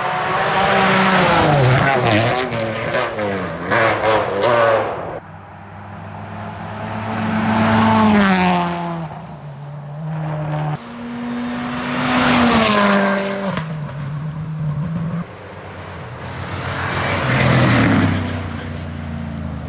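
Rally cars passing one after another at speed, engines revving up and down through gear changes. Four passes in turn, each rising to a peak and falling away, with sudden breaks between them.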